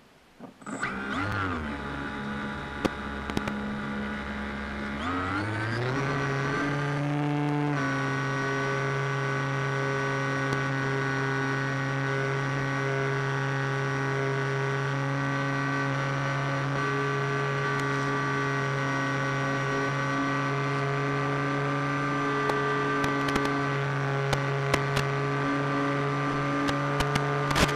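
HobbyKing TL2000 radio-controlled float plane's electric motor and propeller heard from onboard: a whine that starts low, climbs in pitch over a couple of seconds as the throttle comes up for take-off from the water, then holds a steady pitch in flight.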